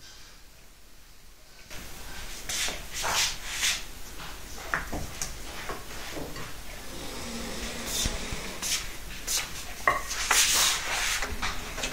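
Two cats scuffling at play on a hard floor: paws and claws scrabbling and skidding, with knocks and rubbing, starting about two seconds in and going on irregularly.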